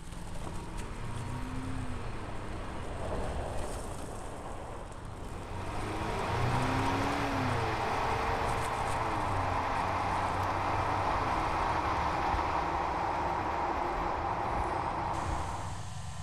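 A 2023 Chevrolet Colorado pickup driving on loose ground: the engine is a steady low hum under a rushing of tyres and wind. The rushing grows louder about six seconds in and drops away just before the end.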